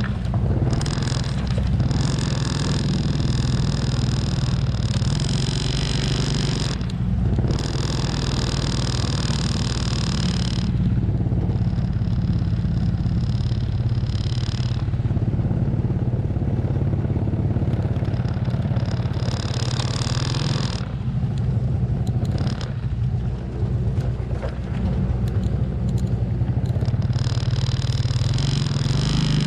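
Loaded logging truck's engine running as it crawls along a muddy dirt road: a steady low drone, with a higher hiss that cuts in and out several times.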